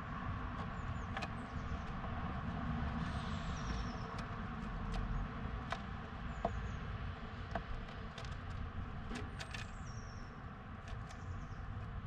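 Blue tits giving a few short, high, thin calls that slide down in pitch, with scattered light clicks and taps. A steady low rumble runs beneath and is the loudest part.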